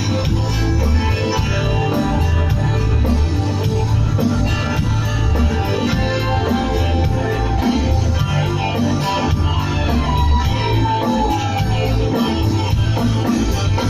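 Instrumental rock music: guitar over bass and drums with a steady beat, and a long falling note about ten seconds in.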